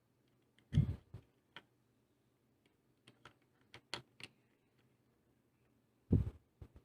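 Scattered plastic clicks from an Armageddon MKA-3C mechanical keyboard and its switches being handled, with a quick run of small clicks in the middle. Two heavier knocks, about a second in and near the end, are the loudest sounds.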